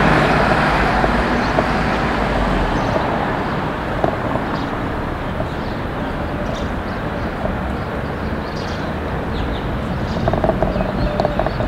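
Steady traffic and street noise, easing off a little over the first few seconds, with a run of light taps near the end.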